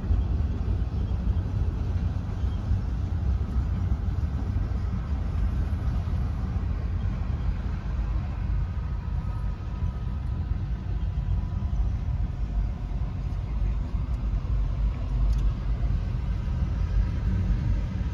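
Freight train cars rolling past at a grade crossing: a steady low rumble.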